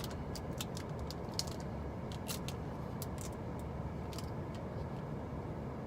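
Scattered crinkles and clicks of a foil Pokémon TCG booster pack being torn open and handled, over a steady low rumble.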